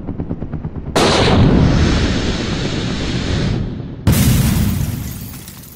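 Cinematic intro sound effects: two heavy explosion-like booms about three seconds apart, each hitting suddenly and dying away, the second with a bright crash on top, fading out near the end.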